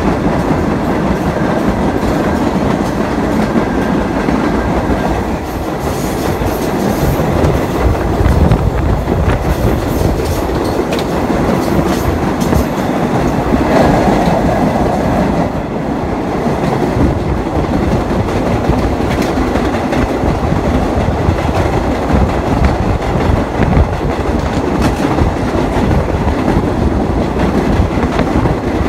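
New York City subway train running at speed, heard from inside the car: a steady rumble with the wheels clicking over the rail joints.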